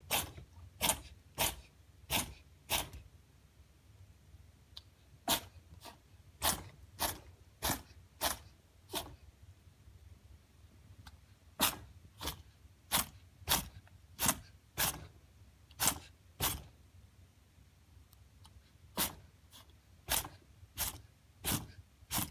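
Domestic rabbit sneezing over and over: about two dozen short, sharp sneezes in four runs, roughly one every two-thirds of a second, which the owner wonders may be a cold or a runny nose.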